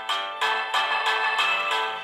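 Nokia 1110i mobile phone playing one of its built-in ringtone melodies through its small loudspeaker, a quick run of bright electronic notes, a few to the second.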